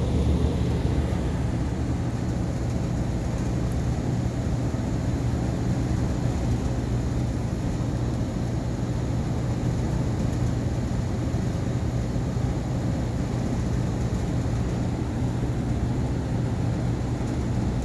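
Steady low mechanical hum with a strong low drone that never changes. No burner ignition is heard: the furnace's burners fail to light.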